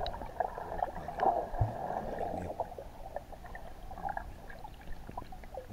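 Muffled underwater sound of sea water churning and bubbling around a diving swimmer, heard through a submerged camera, with a louder surge about a second in.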